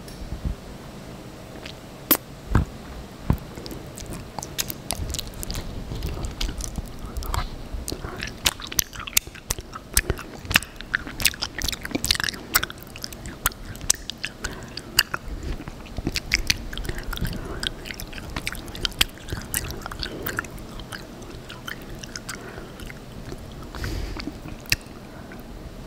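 Close-miked mouth chewing honey: sticky, wet clicks and crackles. A few separate clicks come first, then a dense run of crackling through the middle that thins out near the end.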